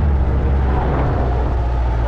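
Off-road jeep's engine running with a steady low rumble as it drives up a sand dune, with a rushing noise over it.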